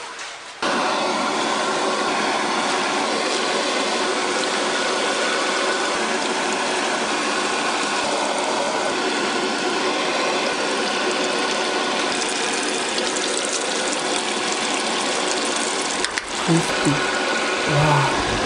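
Coated bread sandwich squares deep-frying in a fryer full of hot oil: a steady, dense sizzle and crackle that starts abruptly about half a second in.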